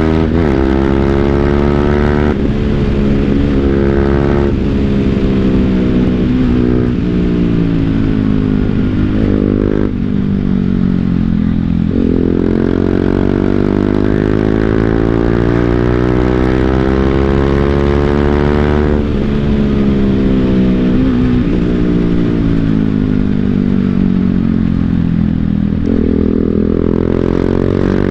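BMW G 310 GS single-cylinder engine through an Akrapovic full-system exhaust, heard on board while riding. The revs rise and fall repeatedly with gear changes and throttle, with one long steady climb through the middle before dropping off.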